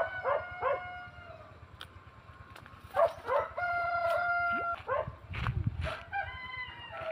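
Roosters crowing three times in turn, each crow a few short notes rising into one long held note. A dull low thump about five seconds in.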